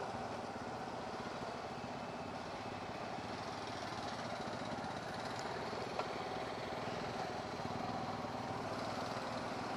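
TVS Apache 160's single-cylinder four-stroke engine running steadily at low revs as the motorcycle creeps along at walking pace in slow traffic. A faint click about six seconds in.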